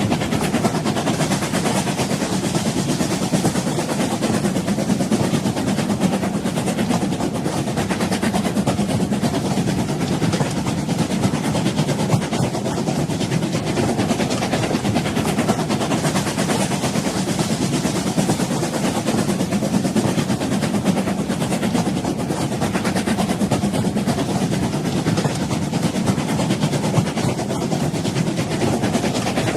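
Old train running steadily: a continuous low rumble with a fine, fast rattle over it and no single knock or whistle standing out.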